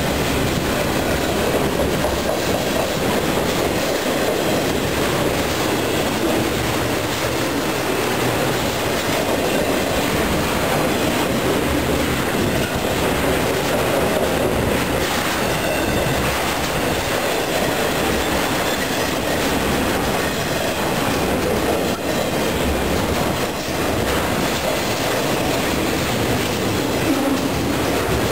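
Double-stack intermodal freight cars rolling past close by: a steady rumble of steel wheels on the rails, with a run of clicks from the wheels.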